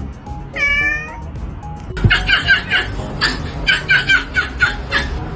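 A domestic cat meows once, about half a second in. About two seconds in, the sound cuts abruptly to a rapid run of short choppy bursts, about three a second, over background music.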